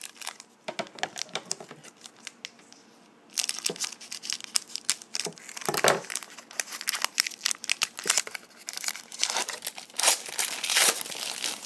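A trading-card pack wrapper crinkling and being torn open, with the cards rustling as they are handled. The crackle is sparse at first and becomes dense from about three seconds in.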